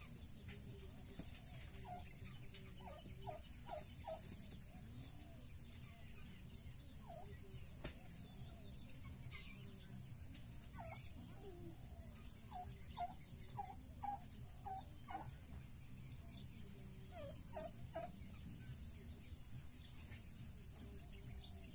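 Turkeys calling in several short runs of quick notes, over a steady high hiss.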